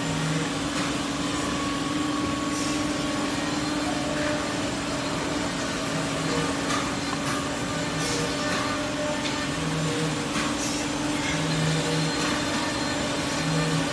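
Two-head CNC mortising machine running: a steady machine hum, with a deeper tone that comes and goes several times and a few faint clicks.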